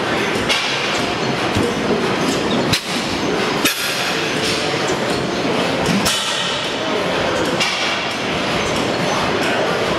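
Field-Brundage cam-stopper stationary gas engine running: a steady mechanical clatter broken by sharp knocks at uneven intervals, a second or more apart.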